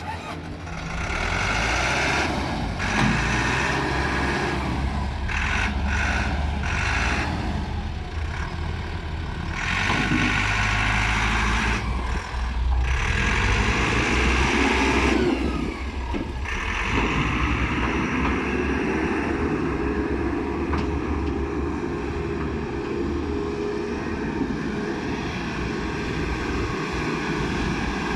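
Caterpillar 426C backhoe loader's diesel engine running, its sound shifting up and down over the first sixteen seconds, then holding steadier.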